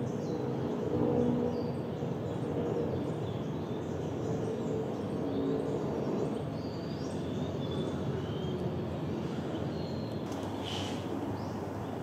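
Outdoor wetland ambience: a steady low rumble with faint, short, high bird chirps scattered through, and one louder chirp a little before the end.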